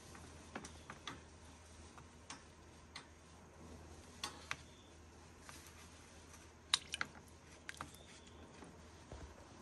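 Faint, irregular clicks and light taps, about ten of them, the sharpest a quick pair about seven seconds in, as a snapping turtle is fed with metal tongs in a shallow tub of water.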